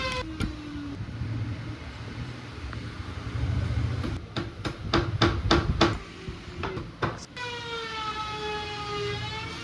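A quick run of sharp knocks, like hammer or tool blows on metal, over a low steady hum. Near the end comes a long, slightly falling tone.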